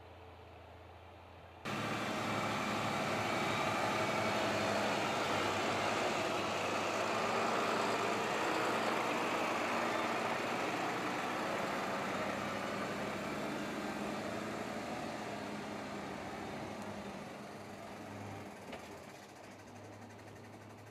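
Heavy vehicle engine running, starting abruptly about two seconds in after a faint low hum and slowly fading away over the last several seconds.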